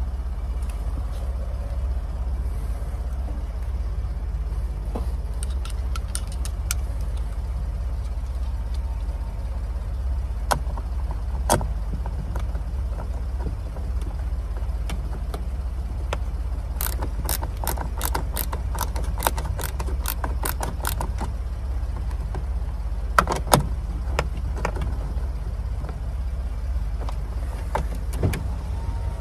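Hand ratchet clicking as a 10 mm bolt is run into a truck door trim panel, in a run of quick clicks about four a second lasting several seconds, with a few separate sharp clicks and knocks from the tool and panel before and after. A steady low rumble sits underneath throughout.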